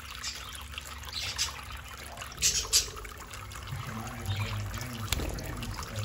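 Small tabletop fountain's water trickling steadily from its spout into a shallow basin, with two brief louder bursts of noise about halfway through and a sharp click near the end.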